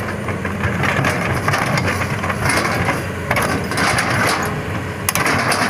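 Hitachi 200-class excavator's diesel engine running steadily, with irregular metallic clanks and clinks from the steel track chain as it is fitted under the machine; one sharp clank about five seconds in.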